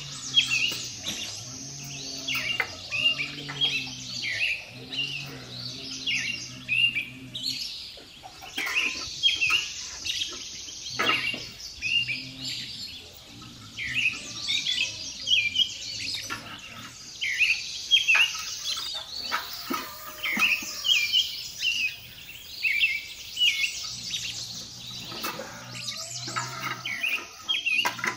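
Many small birds chirping and twittering in quick overlapping calls. A low wavering hum comes and goes underneath, during the first quarter and again near the end.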